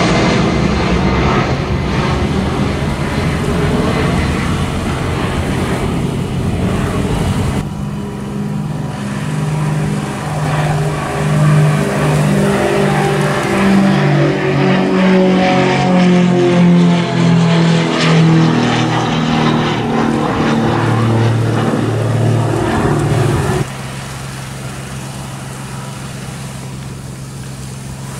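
An Airbus A320-family jet's engines running loud and steady as it climbs out. From about eight seconds in comes a turboprop airliner passing close, its engine and propeller tones shifting up and down in pitch. About 24 seconds in the sound drops to the quieter, steady engine noise of a regional jet taxiing.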